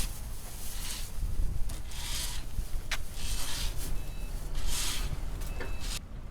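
Wind buffeting the microphone with a constant low rumble, under hissing surges about once a second. There is one sharp click about halfway through, and the sound drops off abruptly near the end.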